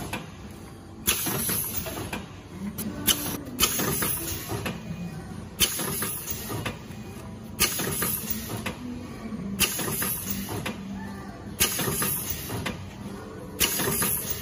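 FBVFFS-300Y vertical form fill seal packing machine running, with a short hiss of compressed air from its pneumatic cylinders about every two seconds as each pouch is cycled through the sealing and cutting stations, over a steady low machine hum.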